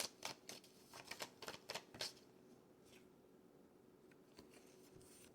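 Tarot cards being shuffled and handled: a quick run of crisp card snaps over the first two seconds, then only a few faint ticks.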